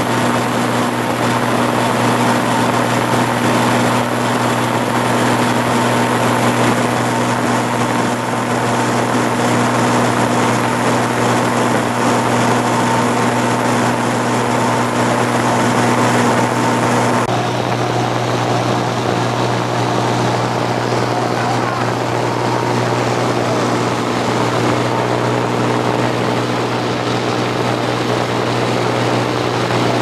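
Piston engine and propeller of a single-engine high-wing light aircraft droning steadily, heard inside the cabin. The engine note shifts slightly a little past halfway.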